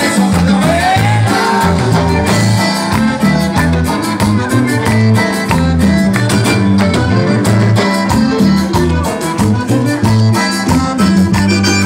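Live band playing Latin dance music without vocals, with accordion, electric guitar, bass guitar, congas and drum kit over a moving bass line.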